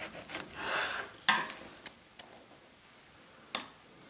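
Slices of baked apple roll being moved about on a china plate with a serrated knife: a soft crumbly scraping, then a sharp click on the plate about a second in, a couple of faint ticks, and another sharp click near the end.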